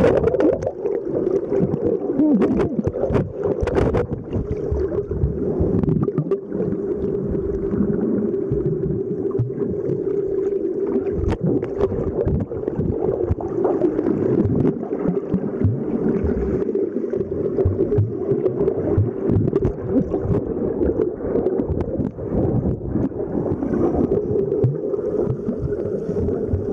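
Muffled underwater sound picked up by a camera below the surface: a steady drone with scattered knocks and bumps, and splashing in the first few seconds as the camera goes under.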